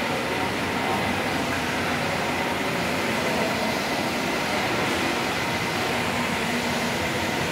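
Ride-on floor scrubber running, a steady mechanical whirr with a faint high whine held throughout.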